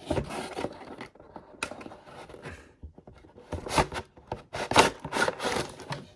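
Cardboard toy box and its plastic packaging rubbing and scraping as the contents are slid out, in irregular bursts that are loudest in the second half.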